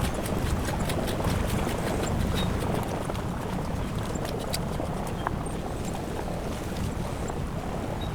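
Steady low rumble of a fishing boat's engine and wind at sea, with a scatter of sharp light clicks and knocks through the first five seconds or so.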